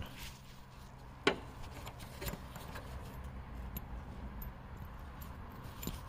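Small metal parts handled by hand: one sharp click about a second in, a softer one a second later, then a few faint ticks, over a low steady hum.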